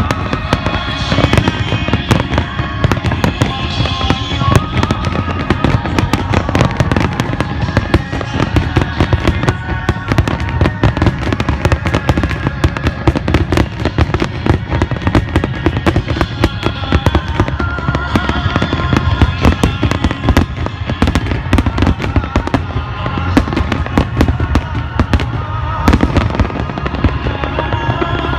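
Aerial fireworks bursting and crackling in rapid succession, many reports a second, with music playing underneath.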